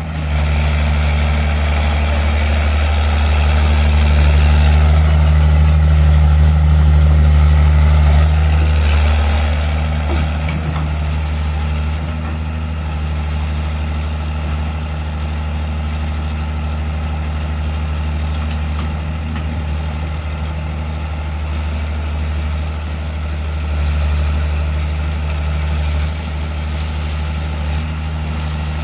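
Heavy diesel engine running steadily with a deep, even hum. It runs a little louder through the first several seconds, then settles back.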